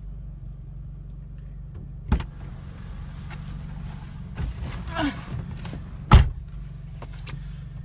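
A car door is opened with a clunk about two seconds in. There is rustling as someone climbs into the seat, then the door slams shut with a heavy thud about six seconds in, all over a steady low hum.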